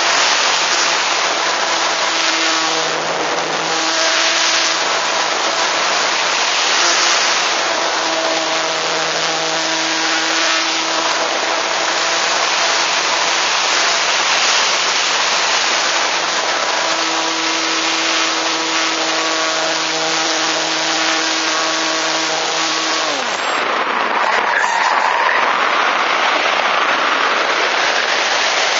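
Electric motor and propeller of an EasyGlider RC glider running with a steady whine under loud rushing airflow on the onboard microphone. Near the end the whine falls in pitch and stops as the motor is cut, leaving only the wind noise of the glide.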